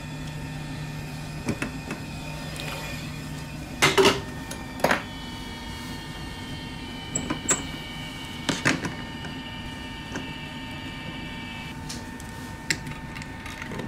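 Steady electric hum of bench equipment, with a few sharp clicks and knocks as the phone and its metal clamp fixture are handled and turned over. The loudest knock comes about four seconds in.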